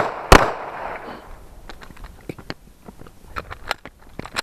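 Two quick 9 mm Smith & Wesson M&P pistol shots at the start, each ringing off. Then about three seconds of small clicks and knocks from a magazine reload, with a sharper click near the end.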